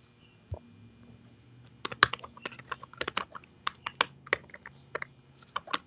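Typing on a computer keyboard: a soft low thump about half a second in, then quick, irregular keystrokes from about two seconds in.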